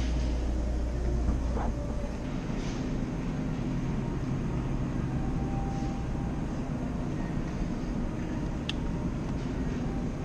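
Steady low rumble of a vehicle's engine and road noise, with a couple of faint clicks near the end.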